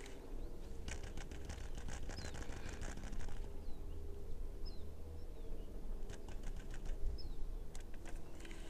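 A baitcasting fishing reel being cranked, giving two runs of fast clicking, the first about two seconds long starting a second in and a shorter one about six seconds in. Short high bird chirps come between them.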